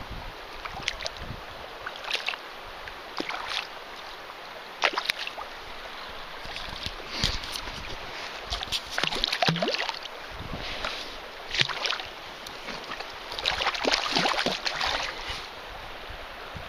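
Stream water splashing and sloshing in irregular bursts as a wild brown trout is handled at the surface of a small stream.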